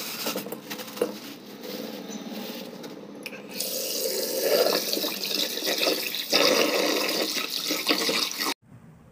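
Tap water running into a steel bowl of cut hilsa fish pieces in a sink, splashing over the fish as they are rinsed. It gets louder a few seconds in, after a plastic bag is handled with some crinkling clicks, and cuts off suddenly near the end.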